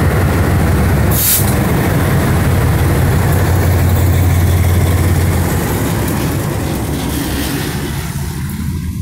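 Two GE B23-7 diesel locomotives with V12 engines passing close by, their engines running with a heavy, steady low drone that eases off after about five and a half seconds as they move away. A short, sharp hiss sounds a little over a second in.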